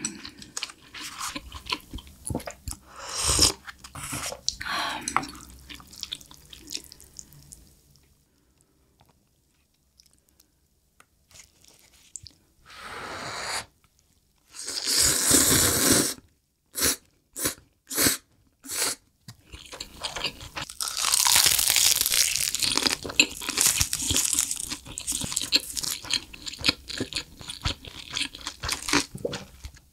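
Close-miked eating of Korean convenience-store food: chewing and crunching, a loud noodle slurp from a small cup of instant noodles about halfway through followed by a few short bursts, and a long stretch of crunchy chewing in the last third. There is a short quiet pause before the slurp.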